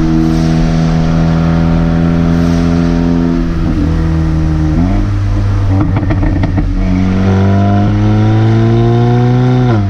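Audi S3's turbocharged 2.0 TFSI four-cylinder, on a Unitronic Stage 2 tune with a catted downpipe and resonator delete, pulling hard under acceleration. Midway the throttle comes off and the exhaust gives a quick run of overrun crackles and pops. The engine then pulls again, rising in pitch, and drops abruptly near the end.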